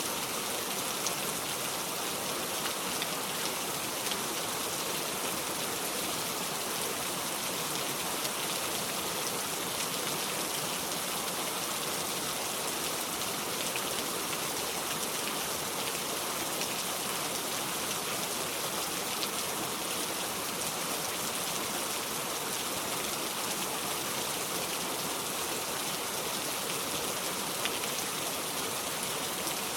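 Steady rain falling: an even hiss of many fine drop ticks that neither builds nor fades.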